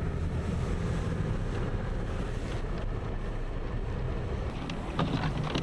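A vehicle engine running steadily under wind noise. About five seconds in there is a sharp click, and the engine hum grows louder.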